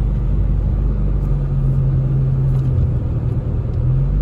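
Steady low rumble of a car's engine and tyres on a wet road, heard from inside the cabin.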